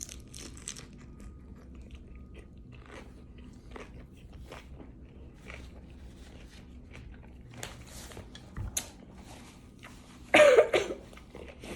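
Close-up chewing and crunching of a pepper and cucumber salad, with many small mouth clicks. About ten seconds in comes a short, loud vocal outburst, a reaction to the spicy heat.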